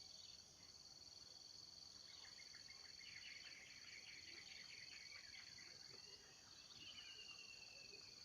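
Steady high-pitched insect drone from crickets, faint throughout. A small grassland songbird, the cincilak padang, sings over it: a rapid run of short chattering notes in the middle, then a short trill near the end.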